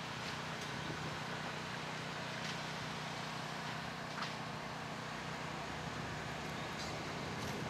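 Steady outdoor background noise with a faint low hum and a few faint scattered ticks; no distinct hoofbeats stand out.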